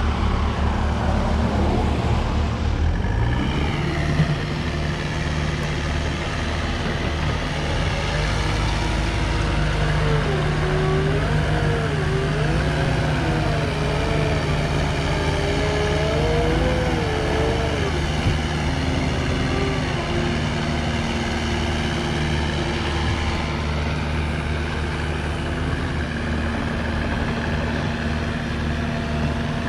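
CAT compact track loader's diesel engine running as the machine travels along a paved road, its engine speed rising about two to four seconds in and then holding steady. A wavering higher tone comes and goes over several seconds midway.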